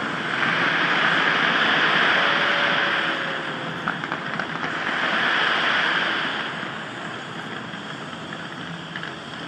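Crowd watching the Taipei 101 skyscraper fireworks show: a continuous rushing wash of fireworks crackle and crowd noise that swells twice, with a few scattered pops near the middle.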